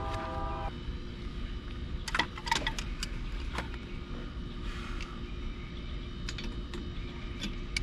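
Scattered sharp metallic clicks and clinks of hand tools being handled on metal, in small clusters, over a steady low hum. A horn with several tones sounding together cuts off just under a second in.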